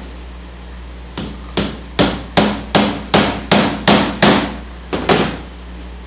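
A hammer striking a wooden stretcher bar frame about eleven times in quick, even succession, roughly two and a half blows a second, with a short pause before the last two.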